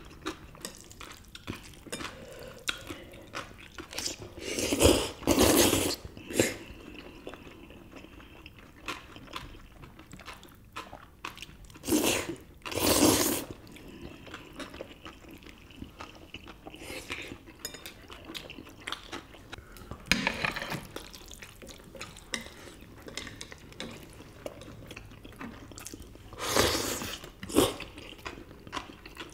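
Close-up eating sounds: chewing and chopsticks clicking against dishes, with four louder slurps of spicy cold bibim noodles, each lasting a second or two.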